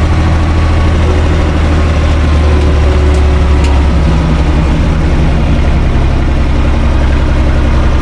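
UTB 445 tractor's diesel engine running steadily at idle, heard from inside its cab.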